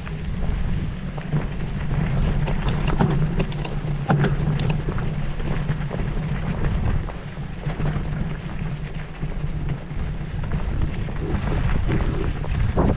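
Wind buffeting the microphone as a steady low rumble, with a few sharp clicks and rattles about three to five seconds in.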